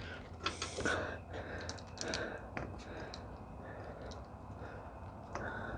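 Light, irregular clicks and taps of small hardware being handled while a steering wheel knob is fitted, over a faint steady hum.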